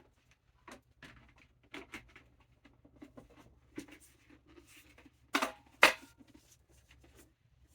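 Hard plastic parts of a Hasbro Lightning Collection Lord Drakkon helmet being handled and fitted together, with small scattered taps and clicks. A sharper click a little past five seconds in, then the loudest one just before six seconds, as the top piece snaps into place.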